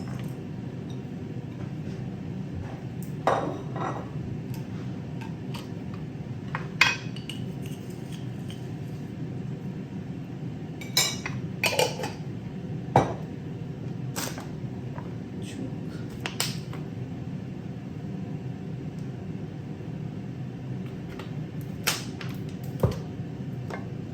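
Kitchen work: scattered clinks and knocks of dishes, pots and utensils being handled, over a steady background hum.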